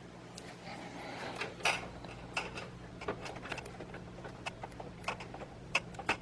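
Light scattered clicks and rubbing of a plastic 8-pin CPU power cable and connector being handled and worked into place, over a faint steady low hum.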